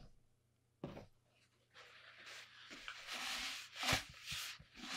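Blue paper shop towel rubbing over a sanded PVC pipe, wiping the abraded surface clean: a hissing rub that starts about two seconds in and grows louder, with a stronger stroke near the end. A single knock comes a little before one second in.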